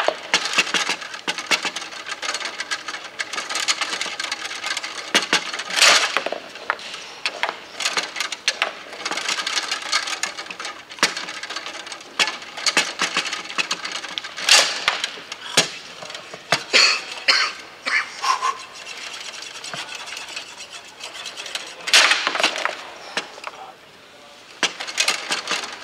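Bonzini foosball table in fast play: a dense run of clacks and knocks of the ball, figures and rods, with a few much louder bangs from hard shots spread through.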